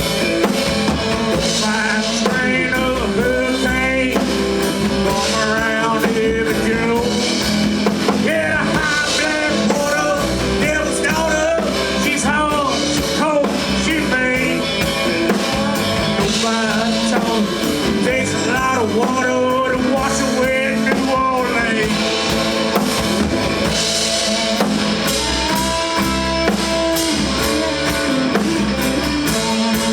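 A rock band playing an instrumental break, with drum kit and a lead line of bending notes over the bass.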